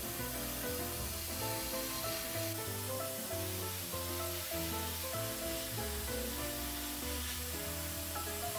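Background music with held notes and a bass line, over the steady hiss of an airbrush spraying paint.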